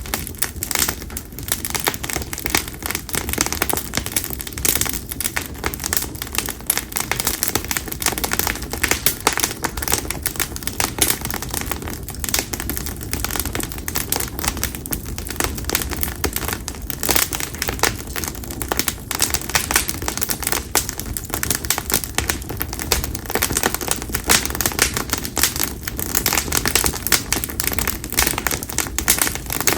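Konara oak (Quercus serrata) split firewood burning in an open campfire, crackling and popping continuously with dense, rapid clicks over a low rush of flame.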